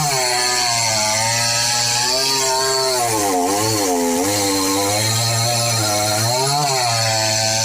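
Two-stroke chainsaw running while cutting into the tree, its engine pitch dipping and recovering several times as the chain bites into the wood.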